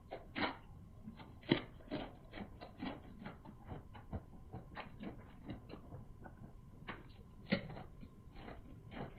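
Close-miked chewing and mouth smacking while eating boiled sea snail meat: an irregular run of short wet clicks, several a second, with a few louder ones.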